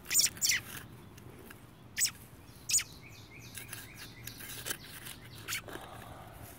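Young American robin chirping: short, high, sharp chirps every second or so. Near the end, a garden trowel scrapes softly in loose soil.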